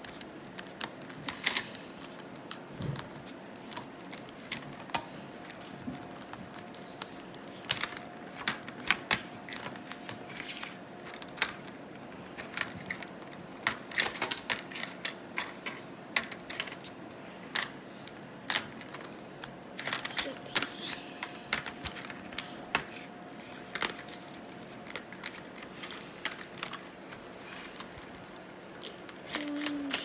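Plastic speed-cube pieces clicking and snapping at irregular intervals as edges and corners are pressed into place during reassembly and set down on the table.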